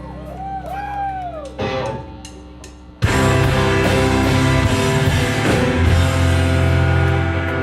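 Live emo rock band playing: a quiet passage with guitar tones bending up and down, then about three seconds in the full band crashes in loud with drums and guitars.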